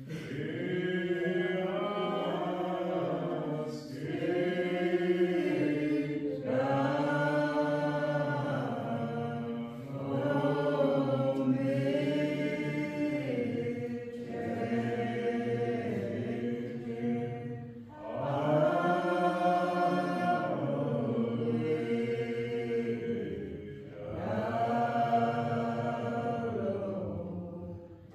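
A group of voices singing a slow hymn in long, held phrases, each phrase four to six seconds long with a brief break between them.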